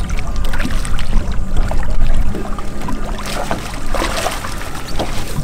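A juvenile lemon shark thrashing and splashing at the water's surface as it is scooped into a landing net. The splashing is loudest a little past halfway, over a steady low rumble.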